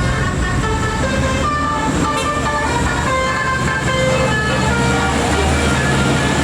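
Indonesian tour bus 'telolet' musical horn playing a quick tune of short notes that step up and down in pitch, over the steady low running of the bus engine.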